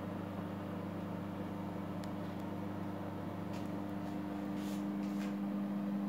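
Microwave oven running: a steady, even electrical hum, a little louder over the last couple of seconds, with a few faint ticks.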